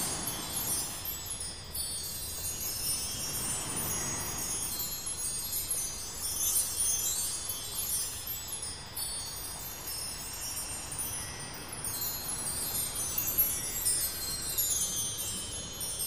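Background music of shimmering wind-chime tones, with clusters of chimes sweeping through every few seconds over a soft wash.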